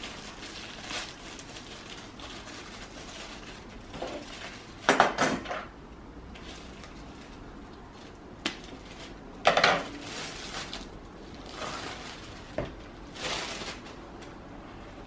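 Clear plastic wrapping being crinkled and torn open by hand in a series of short, crackly bursts, the loudest about five seconds in and again near ten seconds.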